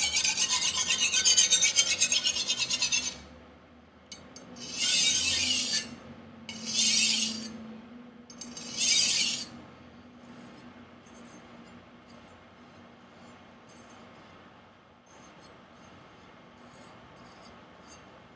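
Steel edge of a Martin Yan Chinese chef knife scraped against a sharpening abrasive: a run of quick rasping strokes for about three seconds, then three shorter passes, grinding away a rolled, micro-chipped factory edge. After about ten seconds only faint light clicks remain.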